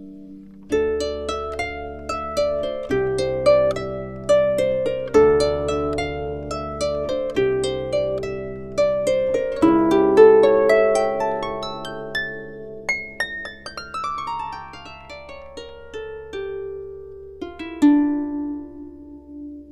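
Instrumental background music: quick runs of plucked notes over low held bass notes, with no singing. The notes grow sparser in the second half.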